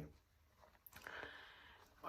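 Near silence: room tone, with one faint click just before a second in.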